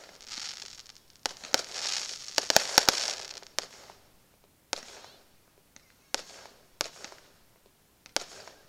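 Aerial fireworks shells bursting with sharp bangs at irregular intervals, a quick cluster of reports about two and a half seconds in, with a hissing crackle of burning stars between the bangs.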